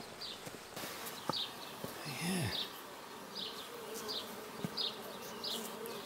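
Honey bees buzzing around an open hive, a steady hum, with a short high chirp repeating about every two-thirds of a second and a brief louder sound about two seconds in.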